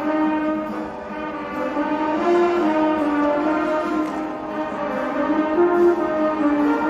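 Background music led by brass, playing long held notes that move slowly from one pitch to the next.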